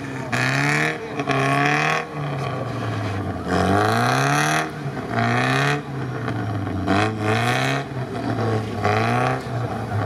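UAZ off-roader's engine revving hard in repeated surges, rising and dropping roughly once a second, while the truck sits stuck and churning in deep mud.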